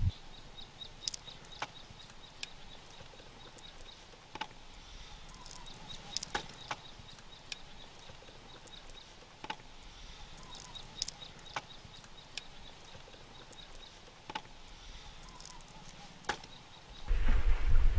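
Scattered small clicks and snaps of raw prawn shells being peeled by hand, a second or so apart. A faint high, pulsing chirp runs in the background, and a low rumble comes in near the end.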